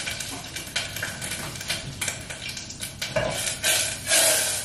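Kitchen clatter: scattered light clinks and taps of a metal saucepan and utensils, with a louder hissing rush from about three seconds in as the pan is handled at the stove.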